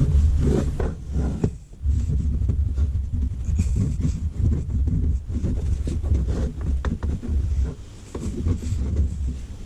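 Waxed wooden window sash sliding up and down in its wooden frame: a low rubbing rumble in repeated strokes with scattered light knocks.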